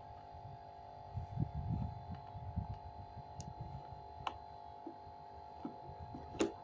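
Handling noise as wires are pushed into a power socket: irregular low bumps and a few small clicks, the sharpest near the end, over a steady faint hum.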